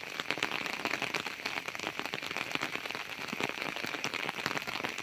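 Rain falling on an umbrella overhead: a dense, uneven run of small drop hits.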